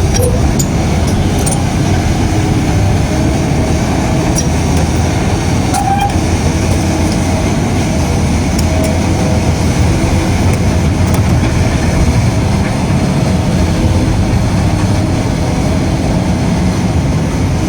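Heavy excavator's diesel engine running steadily under working load, with a few scattered sharp clicks.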